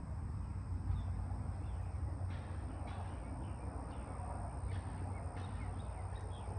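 Outdoor ambience: scattered short bird chirps over a steady low hum and a thin, steady high whine.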